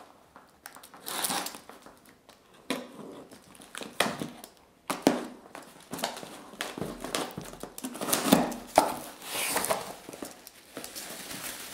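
A product box being opened by hand: irregular rustling and crinkling of packaging, with scattered sharp clicks and taps as the box is handled.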